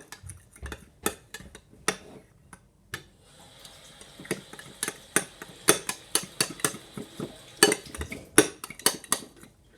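A utensil stirring slime in a dish, with irregular clinks and scrapes against the dish. A steady hiss runs underneath from about three seconds in until about eight seconds.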